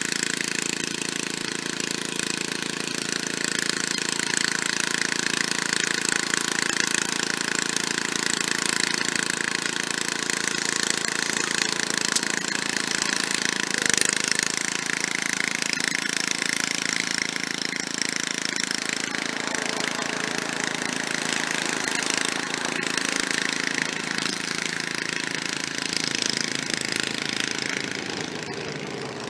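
Briggs & Stratton engine of a late-1960s Snapper rear-engine riding mower running steadily, with a utility bucket truck driving past about halfway through, briefly the loudest thing.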